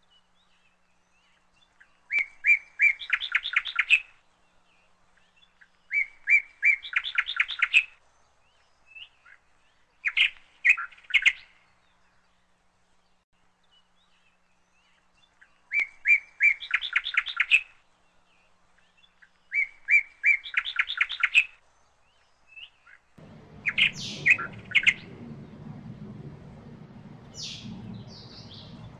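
A songbird singing the same short chirping phrase over and over, each about two seconds long and roughly every four seconds. The notes climb in pitch through each phrase. Near the end a low steady rumble joins underneath.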